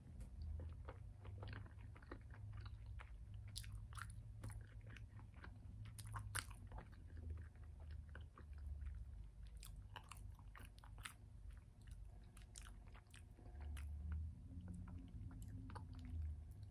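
A person chewing and biting into a soft sandwich bun, close to the microphone, with many short wet mouth clicks over a low steady hum.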